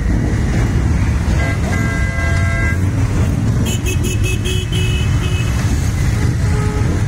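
A column of motorcycles and trikes rumbling past at parade pace, a dense steady engine drone. A horn sounds for about a second around a second and a half in, and a quick run of short horn beeps follows around four seconds in.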